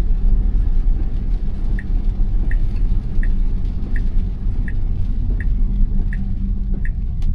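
Steady road and tyre rumble inside the cabin of a 2021 Tesla Model Y on wet pavement. From about two seconds in, the turn signal ticks evenly, roughly once every 0.7 seconds.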